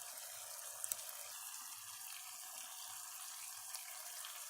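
Chopped onion, tomato and green pepper sizzling steadily in olive oil in a pot, with a couple of faint clicks about a second in.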